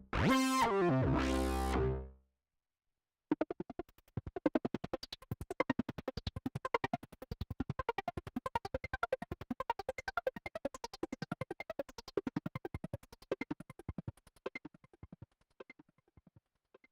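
Sequential OB-6 analog polysynth: a sustained note ends about two seconds in. After a second of silence, a new program plays a fast run of short plucked notes, about six a second, which thins out and fades near the end.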